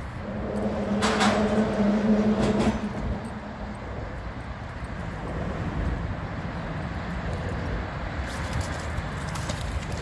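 Steady traffic noise from vehicles crossing the bridge overhead, with a louder pitched drone for about two seconds near the start. Near the end comes a splash as the thrown magnet lands in the river.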